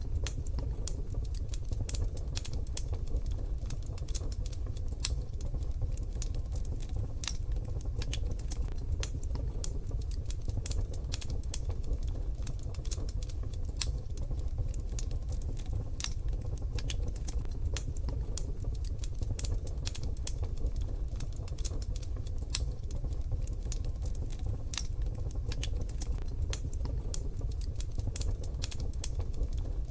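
Wood fire crackling in a wood-burning stove: irregular sharp pops and snaps over a steady low rumble.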